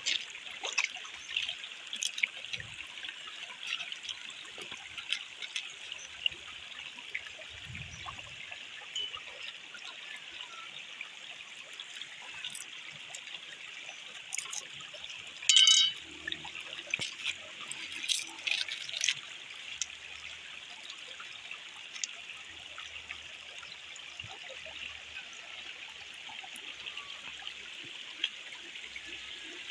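Shallow stream trickling steadily over rock, with scattered clicks and knocks as stones and sticks are set down on the rock; one louder clatter about halfway through.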